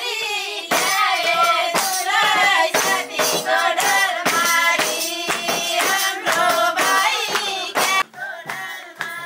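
Music: a song with a singing voice over a steady percussion beat, dropping in level about eight seconds in.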